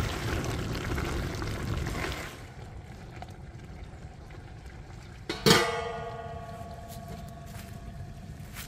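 Rabbit stew simmering and stirred with a wooden spoon in a large steaming metal pot. About five seconds in, a metal lid is set on the pot with a sharp clang that rings and dies away over about two seconds.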